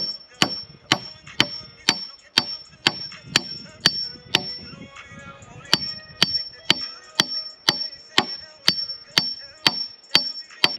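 A hammer driving a stake alongside a concrete footing form board in steady blows, about two a second, each ringing. There is a brief pause about five seconds in.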